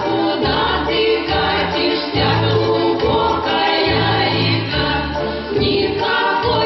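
A folk choir singing a song over an instrumental accompaniment, with low bass notes about once a second.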